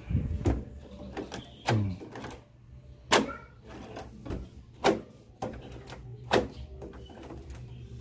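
Spring latch of a newly fitted stainless-steel ball doorknob clicking as the knob is turned and released again and again, testing that the latch works: sharp clicks, roughly one every second or so.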